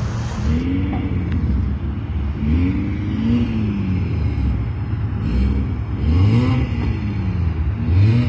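Motor sound from the Letrons transforming BMW robot car, rising and falling in pitch four times over a steady low rumble.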